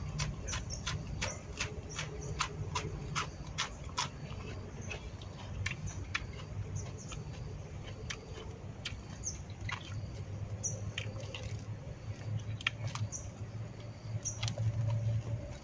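Close-up chewing of crunchy grilled field rat: a quick run of sharp crunches, about three a second, over the first few seconds, then sparser clicks. Short high chirps come in now and then.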